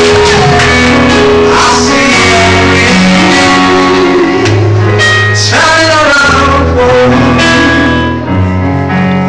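A man singing gospel into a handheld microphone over backing music with long held bass notes, loud throughout.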